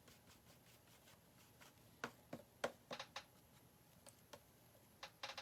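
Near silence with a few faint, short taps of a paintbrush dabbing paint: several about two to three seconds in and a small cluster near the end.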